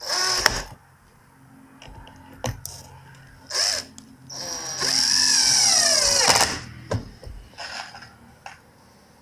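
Cordless drill running in short bursts against a sheet-metal panel, most likely drilling into it. One burst comes right at the start and a brief one about three and a half seconds in. The longest, about two seconds, comes just past the middle, its pitch rising and then falling.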